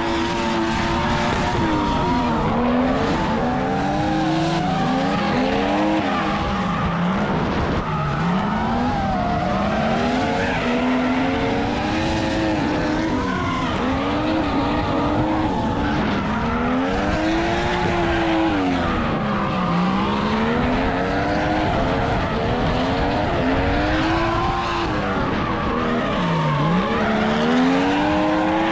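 BMW E36 drift car sliding through corners, its engine revving up and down in repeated swoops over a steady hiss of tyre squeal and skidding.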